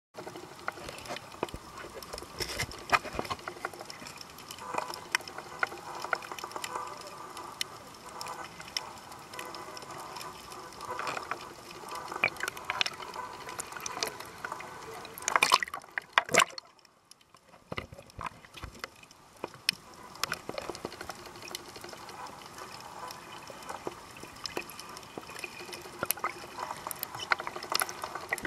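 Water heard underwater: bubbling and sloshing with many small clicks and crackles, going nearly quiet for about a second partway through.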